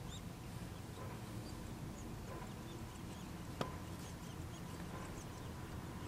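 Many faint, short, high chirps, the begging of Nuttall's woodpecker nestlings inside the nest cavity as an adult feeds them, over a steady low rumble. A single sharp tap comes about three and a half seconds in.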